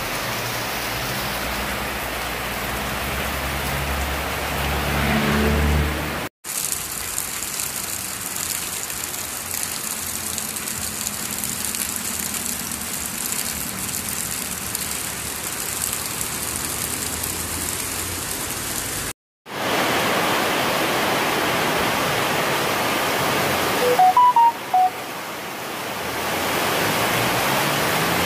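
Heavy rain pouring down in a steady, loud hiss onto a roof and waterlogged ground, with water running off. The sound cuts out twice for a moment, and about three-quarters of the way through a few short high chirps or beeps stand out above the rain.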